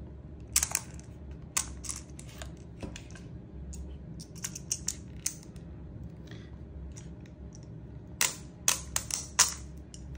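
Irregular small clicks and rattles of BBs being pushed one by one into a gas blowback rifle magazine with a loader, with a quicker run of clicks near the end. The new magazine loads stiffly.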